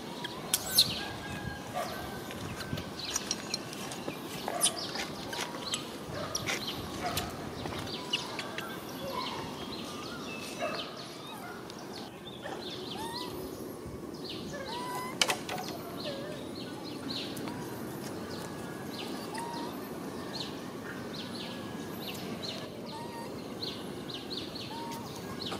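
Outdoor ambience: a steady background noise with many short, high chirps and squeaks scattered through it, busiest in the first half, and a few sharp clicks.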